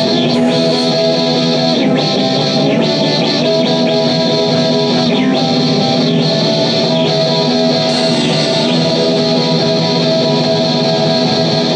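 Electric guitar playing a repeating chord pattern through an amp, a full, steady band-like sound with no singing.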